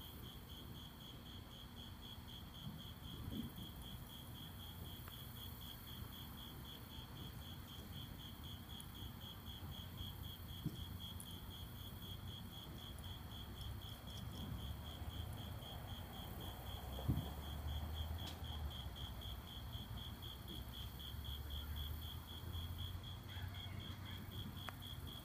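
A cricket chirping steadily in a fast even pulse, about three chirps a second. Underneath is a low rumble with a few faint thumps, the sharpest about two-thirds of the way in.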